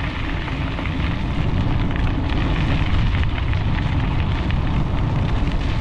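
Wind buffeting the microphone over the crunch of bicycle tyres rolling on loose gravel: a steady, loud rush of noise that builds a little in the first second.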